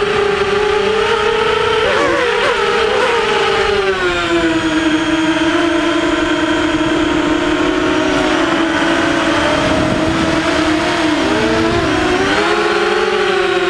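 The brushless motors and propellers of an HMB 235 FPV quadcopter, heard from the camera mounted on the craft in flight: a loud, steady, multi-toned buzzing whine. The pitch shifts with throttle, and the motors' tones split and waver around two seconds in and again near the end as the craft manoeuvres.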